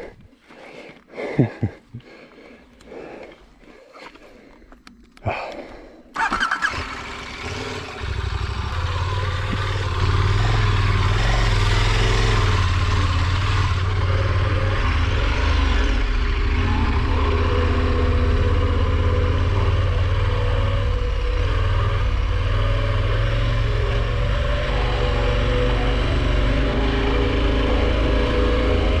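A few knocks and clicks, then the KTM 1190 Adventure R's V-twin engine starts about six seconds in and runs steadily and loudly.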